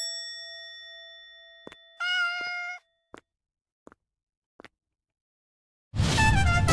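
A bell-like ding sound effect rings out and fades over about two seconds, followed by a short cat meow lasting under a second and a few faint clicks. Upbeat jazzy music with brass starts about a second before the end.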